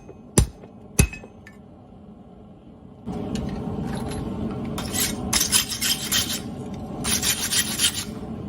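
Two hammer blows on steel at the anvil within the first second. About three seconds in a steady rushing noise starts, and over it come two spells of rapid metallic clinking and scraping.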